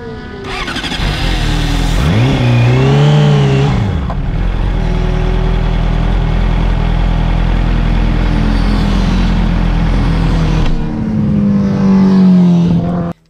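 Motorcycle engine revving up and back down about two seconds in, then running loud and steady. Near the end it falls in pitch and cuts off suddenly.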